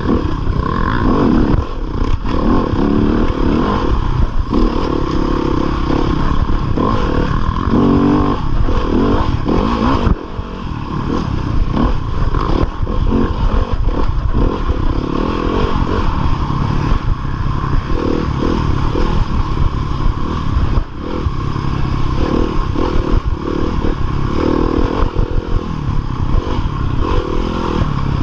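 2015 Yamaha YZ250FX dirt bike's 250 cc four-stroke single-cylinder engine running hard under race throttle, its pitch rising and falling constantly. The level drops briefly twice, about ten seconds in and again about twenty-one seconds in.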